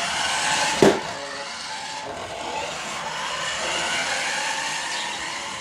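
Remote-control car's motor whirring steadily as it drives, with a sharp knock about a second in.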